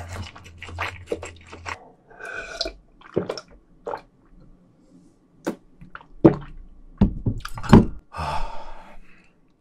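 A person's wet mouth clicks and sharp breaths, with hissing exhales against the burn of extra-spicy fire noodles. Gulps of water from a glass come in the middle.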